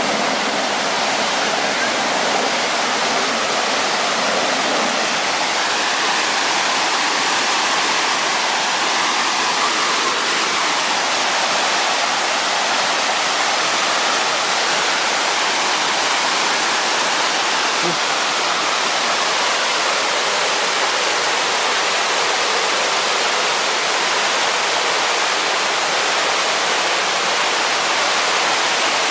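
Mountain stream tumbling in whitewater cascades over rocks: a steady, loud rush of water with no change through the whole stretch.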